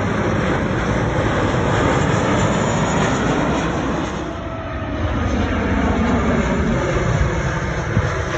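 Engine noise of an arriving airliner on approach, a loud steady rush that eases briefly about four seconds in and then builds again, with a faint falling whine along the way.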